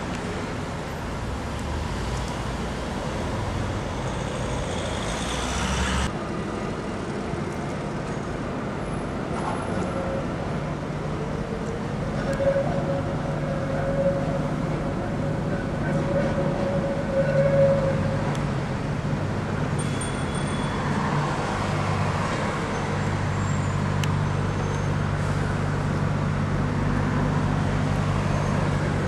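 Steady rumble of a moving vehicle heard from inside, with a higher whine for several seconds near the middle.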